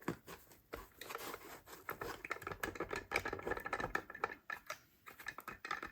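Small tool levering at the body shell of an HO scale steam locomotive to pry it off the chassis: a run of faint clicks and scrapes, busiest through the middle.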